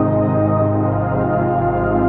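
Slow ambient music: a drone of sustained, layered tones held steadily, with some notes changing about two seconds in.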